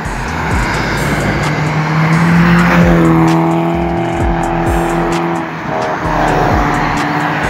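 Cars passing close by on a highway: tyre and road noise swells to a peak about two to three seconds in, then a steady engine drone whose pitch dips slightly as a car goes past, and a second car follows near the end.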